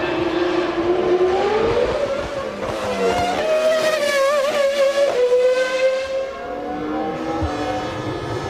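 1996 Formula One race car engines at high revs. The pitch climbs over the first few seconds, wavers at its highest, then drops sharply about five seconds in.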